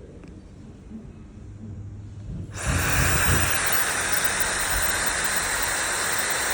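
A hair dryer is switched on about two and a half seconds in and then runs with a steady rush of air.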